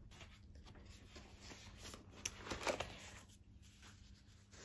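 Pages of a spiral-bound sketchbook being turned by hand: soft rustling and sliding of card pages, loudest about two to three seconds in.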